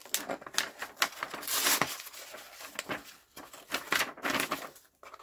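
A stonewashed folding knife blade cuts through a sheet of printer paper in uneven rasping strokes, with the paper crinkling in the hand. The loudest strokes come about one and a half seconds in and again near four seconds. The blade is not very sharp out of the box, so it snags and tears rather than slicing cleanly.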